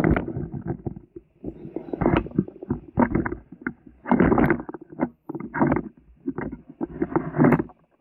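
Indistinct speech from a person across the room, too muffled to make out any words.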